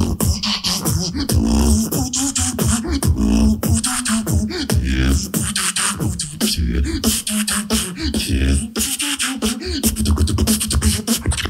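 Live solo beatboxing: deep vocal bass and kick-drum sounds under rapid snare and hi-hat clicks, with a pitched melodic vocal line woven through the beat.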